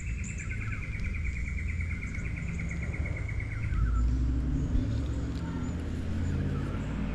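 A bird's trill: a fast run of notes, falling slightly in pitch, that stops about three and a half seconds in. A low rumble lies underneath and grows stronger in the second half.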